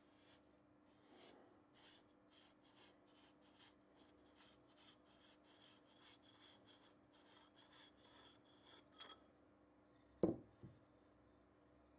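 Faint rhythmic rubbing and squeaking of a threaded fitting being unscrewed by hand from the end of a Hatsan Flash PCP airgun's air cylinder, two or three strokes a second, stopping about nine seconds in. Then a thump and a smaller knock as a part is set down.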